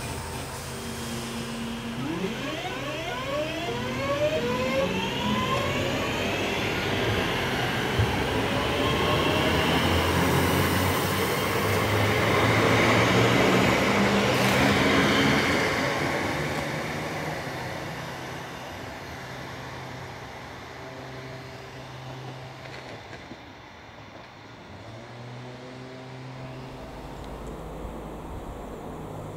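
A Northern Class 323 electric multiple unit runs past. Its traction motors give a whine that rises in pitch as the train picks up speed. Then the wheels on the rails grow loud as it passes close by, and the sound fades away as it goes.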